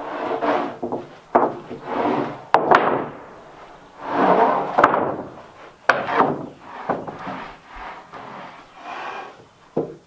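Rough-sawn wooden boards being slid and laid onto a stack: wood scraping over wood, broken by several sharp knocks as boards land on the pile.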